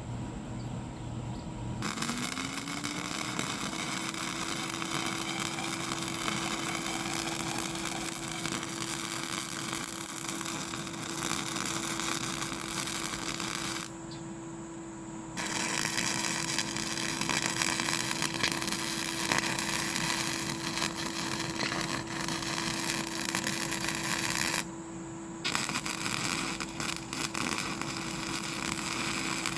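A motor starts about two seconds in with a rising whine, then runs at a steady pitch under a constant loud hiss. The hiss cuts out abruptly twice.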